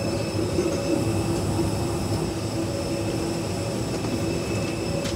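Steady hum and hiss of an airliner cabin's air system while the plane is parked for boarding, with a couple of constant low tones.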